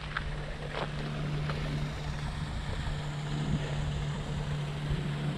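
A steady low mechanical hum, like a distant engine, with wind rumbling on the microphone; a couple of short high sounds in the first second.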